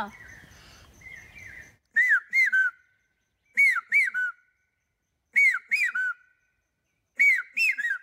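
A man whistling an imitation of the common hawk-cuckoo's (pavsha's) call through cupped hands: four three-note phrases, each two high arched notes and then a lower one, repeated about every second and a half.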